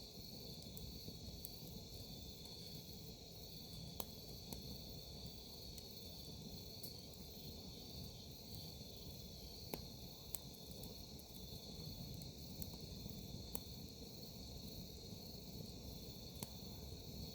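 Crickets chirping in a steady high trill, with a wood campfire crackling in a few sharp, scattered pops.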